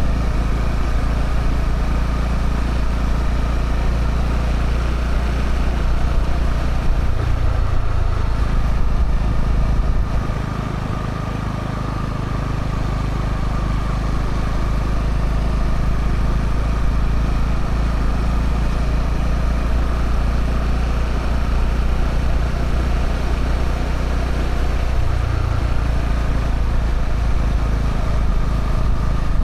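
Honda CB125R's single-cylinder 125cc engine on its stock exhaust, running steadily while ridden. The engine note shifts twice, around a quarter of the way in and near the end, and the sound drops a little quieter for a couple of seconds about ten seconds in.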